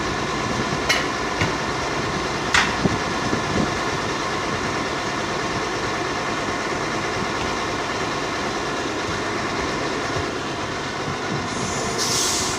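Steady mechanical running noise, with a few sharp knocks in the first three or four seconds and a short hiss near the end.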